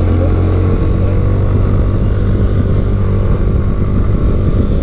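Motor scooter engine running steadily while riding along a road, with wind rushing over the microphone.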